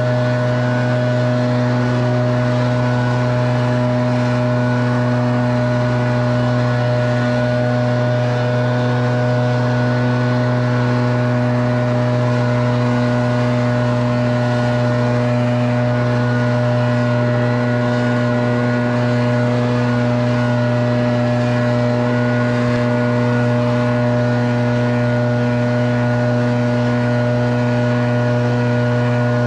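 Gas leaf blower engine running steadily at full throttle: a constant drone with airy hiss, holding the same pitch throughout.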